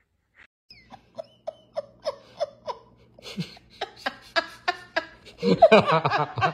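A person laughing: short giggles about three a second, breaking into loud open laughter about five and a half seconds in.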